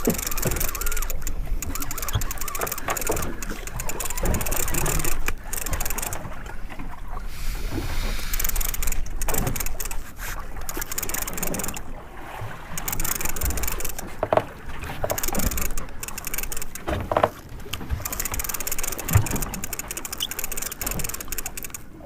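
Wind and water noise aboard a small fishing boat at sea: a loud rush of hiss that gusts in and out every few seconds over a low rumble.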